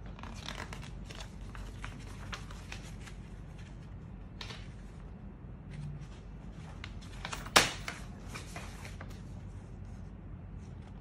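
Paper catalog pages rustling and crinkling as they are handled and turned, in scattered short bursts, with one sharp snap about seven and a half seconds in.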